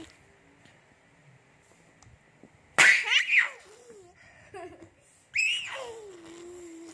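A baby's high-pitched squeals of delight: a sudden loud shriek about three seconds in, a few short little sounds, then a second squeal that starts high and slides down into a lower drawn-out tone.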